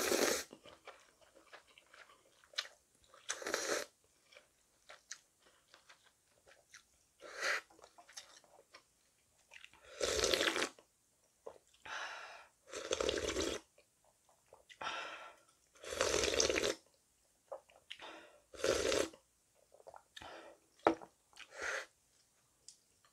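Close-up mouth sounds of eating mul-naengmyeon: a series of slurps of cold noodles and broth, each under a second, with chewing and small wet mouth clicks between.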